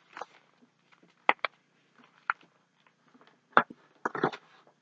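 Paper and card being handled: a handful of short rustles and taps with quiet gaps between them, the busiest stretch near the end.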